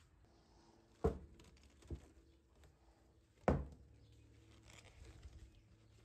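Objects being set down on a wooden workbench: two sharp knocks about two and a half seconds apart, the second the louder, with a lighter knock between them.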